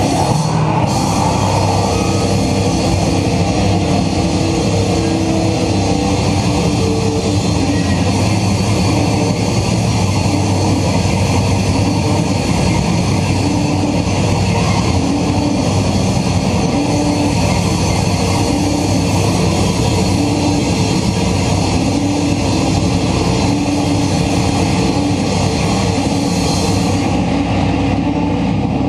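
Live hardcore/thrash metal band playing at full volume: dense distorted guitars, bass and drums, heard loud and saturated on the recording.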